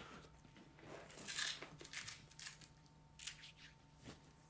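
Quiet, scattered rustles and scrapes of a fabric bag being handled and opened, over a faint steady hum.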